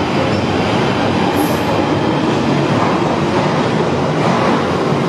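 London Underground Northern Line train running through the platform, with the steady, loud noise of its wheels on the rails.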